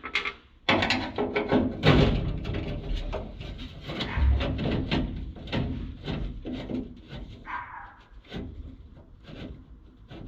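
Metal clunks, scrapes and rattles as a loose scissor-type window regulator is grabbed and shifted about inside a steel pickup door.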